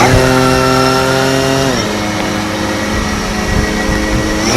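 DJI Phantom 4 quadcopter's motors and propellers whining steadily in flight. The pitch steps down about two seconds in, then climbs again at the very end.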